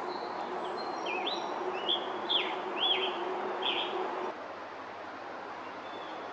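Male scarlet tanager singing: a run of about five short, slurred, up-and-down phrases, stopping about four seconds in. A steady background noise runs underneath.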